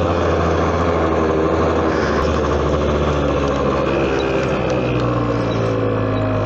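The small engine of a 50 cc Adly quad running at low, steady revs as the quad rolls slowly.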